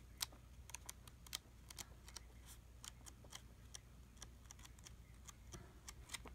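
Faint, irregular paper ticks and clicks as the pages of a hardcover art book are leafed through by hand, over a low steady hum.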